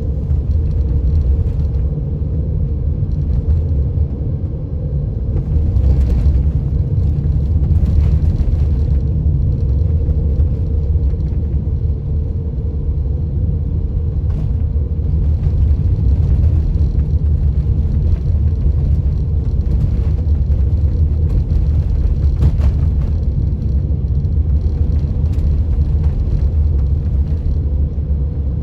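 Steady low rumble of a road vehicle driving, with a few faint brief knocks along the way.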